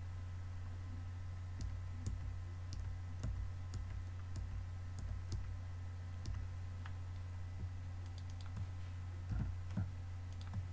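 Irregular single clicks of a computer keyboard and mouse as keys and buttons are pressed one at a time, over a steady low hum. Two louder clicks come close together near the end.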